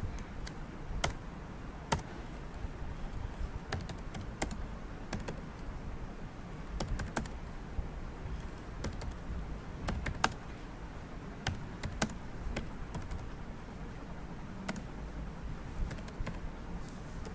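Typing on a computer keyboard: slow, uneven keystrokes in short spurts with pauses between, over a low steady hum.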